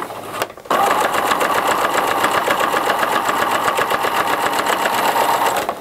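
Electric sewing machine stitching at a steady, rapid, even pace with a zipper foot, topstitching through the pouch layers beside a zipper. It pauses briefly just under a second in, then runs for about five seconds and stops near the end.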